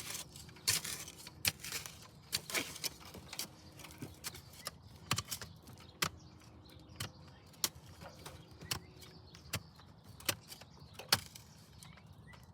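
Shovel digging around a buried sewer pipe: irregular sharp clinks and knocks of the blade in the soil, about one or two a second.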